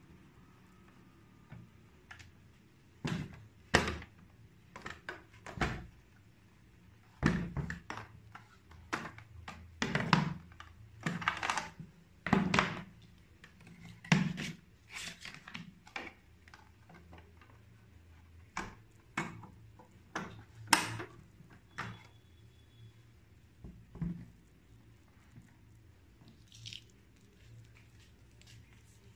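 Sony CFS-B55 radio cassette recorder's plastic casing and carrying handle knocking and clicking as it is handled and turned over. The knocks are irregular and sharp, and they stop a few seconds before the end.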